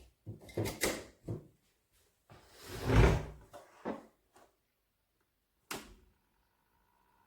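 Handling sounds: a run of clicks and knocks, with one louder, heavier thump about three seconds in and a last sharp click near the end.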